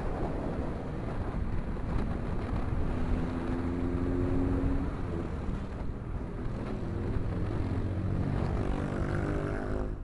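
A car driving, heard from a camera mounted outside by the door: engine and tyre noise with a heavy low rumble, and the engine note climbing in the second half as it revs up.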